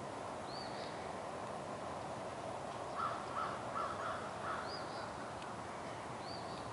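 Outdoor field ambience: a steady hiss of background noise, with a few short high bird chirps and a run of about five quick calls about three seconds in.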